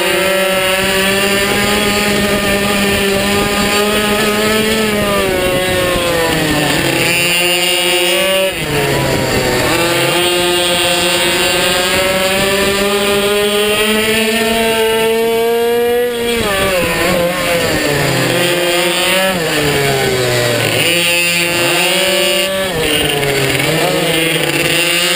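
Onboard sound of a racing minibike's small engine at high revs, its pitch climbing steadily as it accelerates and dropping sharply several times as the throttle is closed for corners, with a run of quick drops and recoveries in the second half.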